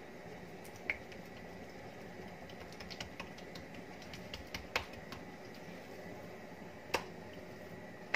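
Oiled hands pressing and patting msemen dough flat on a countertop: scattered small sticky clicks and taps, with a few sharper knocks about a second in, around the middle and near the end.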